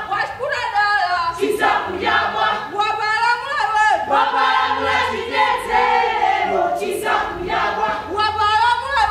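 A group of voices singing and calling out together, many overlapping, their pitches sliding up and down.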